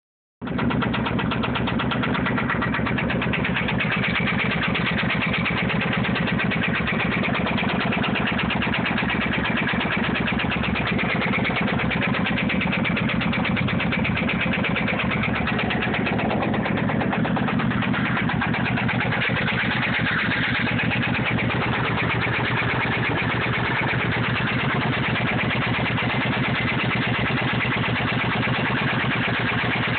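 Motorcycle engine idling steadily with a fast, regular ticking running through it. The tick is an unexplained noise that the owner takes for a fault.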